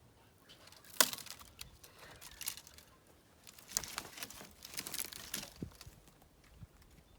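Irregular rustling and crackling, with a sharp crack about a second in and two busier spells of crackle after it.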